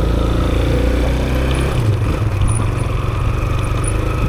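Motorbike engine running steadily as the bike sets off and rides along.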